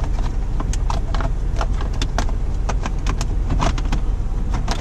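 Irregular clicks and light knocks of plastic steering-column trim being handled and pushed into place, over a steady low hum.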